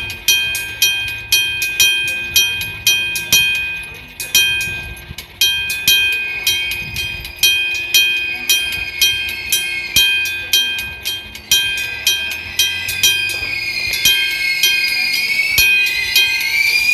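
Level crossing warning bell of the old electric-gong type, its hammer striking a metal gong over and over, about two and a half strikes a second, with a short break about four seconds in. From about twelve seconds in a wavering high whine rises under the strikes.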